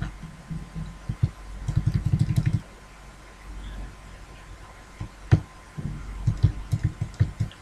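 Computer mouse scroll wheel being rolled: two quick runs of soft low thumps, about ten a second, with a single sharp click between them, over a faint low hum.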